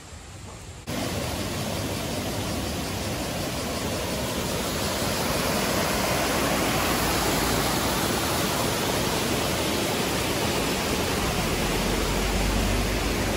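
Rushing river water, a steady full rush that cuts in suddenly about a second in.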